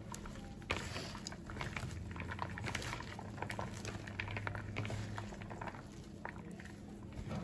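Bare hands squeezing and tossing shredded sweet potato and bean sprouts through damp cornstarch batter in a plastic bowl. It makes a wet, squishing rustle full of small irregular crackles. A low steady hum underneath stops about five seconds in.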